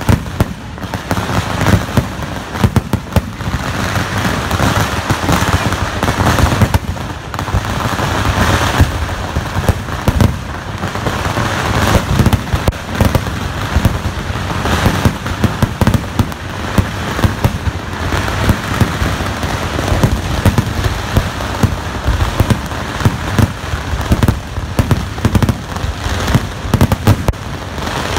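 Fireworks: a continuous barrage of aerial shells bursting, with many sharp bangs over a dense, unbroken crackle.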